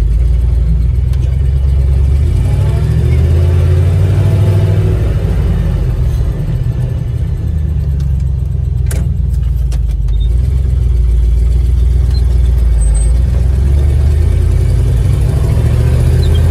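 1971 GMC dump truck engine running under load, heard from inside the cab, rising in pitch as it revs up early on and easing off briefly midway as the driver works the splitter and shifts gears. A single sharp click sounds about nine seconds in.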